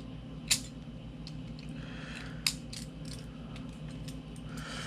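Hand tool stripping insulation from a battery wire: two sharp snips about two seconds apart, with small clicks and handling between them over a steady low hum.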